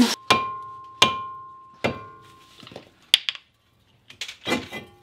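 Metal brake parts being struck three times, about a second apart, each strike ringing on with the same clear metallic tone as the front brake rotor is worked loose from the hub. A click and some lighter metal clinks follow near the end.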